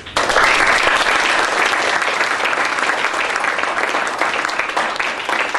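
Audience applauding, the clapping breaking out all at once and holding steady.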